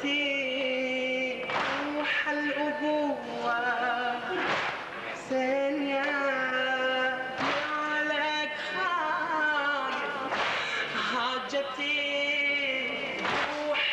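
A male reciter singing a slow Shia latmiya (Muharram lament) in long held, wavering notes. About every three seconds the crowd lands a single sharp strike in unison, the chest-beating (latm) that keeps time with the lament, five times in all.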